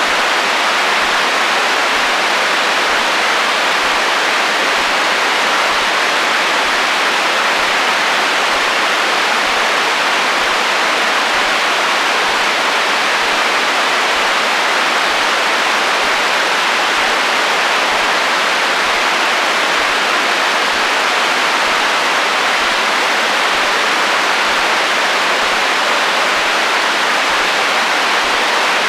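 Radio receiver static: steady interference hiss from a radio picked up between stations, even in level throughout, sitting in the middle and upper range with little bass.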